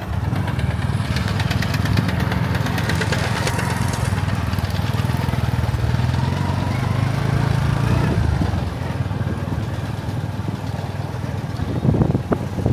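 A small engine running steadily. Its pitch rises about halfway through and falls back after a couple of seconds, as if the engine speeds up and then eases off.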